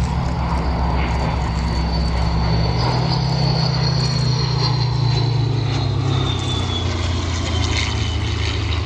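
Rolls-Royce Merlin V12 piston engines of a Spitfire I and a Sea Hurricane Ib flying past with a steady, heavy drone. A high whine slowly falls in pitch across the middle of the pass, and the engine note drops near the end as the aircraft move away.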